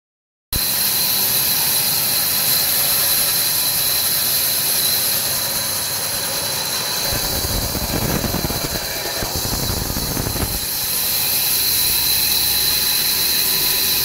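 Large wheel band saw running with a steady high-pitched whine. From about seven seconds in to about ten and a half seconds the blade cuts through a wooden log, adding a deeper, heavier layer to the sound.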